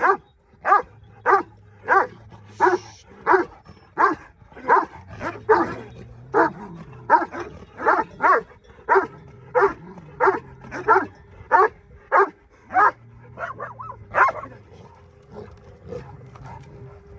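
A dog barking over and over in a steady rhythm, about three barks every two seconds. The barking thins out and nearly stops near the end.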